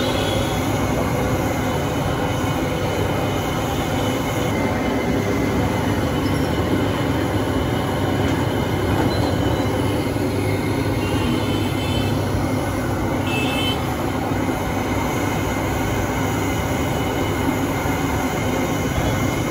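Steady roar of a large gas burner firing under a giant iron kadai of milk, with the milk bubbling on the hot pan.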